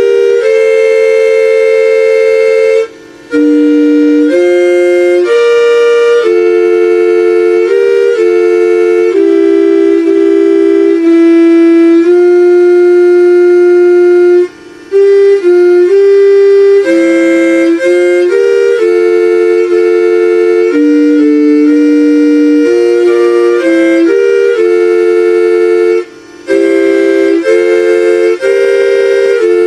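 A municipal FM announcement-broadcast time chime: a slow melody in two-part harmony on an electronic woodwind-like tone. It breaks off briefly three times between phrases.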